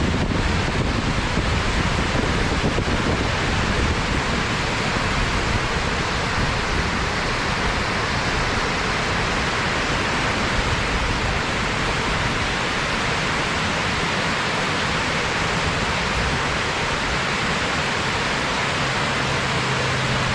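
Steady rush of a waterfall cascade, a continuous even roar of falling water. A low steady hum joins near the end.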